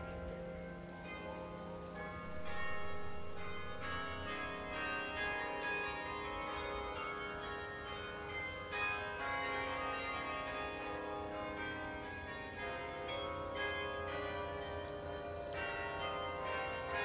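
Carillon bells of Bok Tower playing a slow tune, each note struck and left ringing so the notes overlap.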